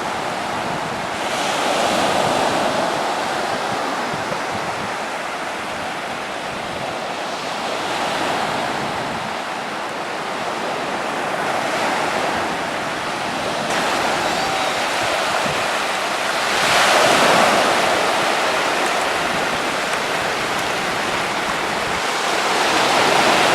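Ocean surf: waves breaking and washing up the beach, the rush swelling and fading every few seconds, loudest about seventeen seconds in.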